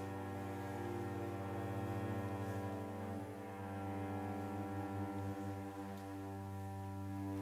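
Cello bowing a sustained low note: a steady drone rich in overtones, with a brief dip about three seconds in, likely a bow change, and a pulsing in the low tone from about five seconds on.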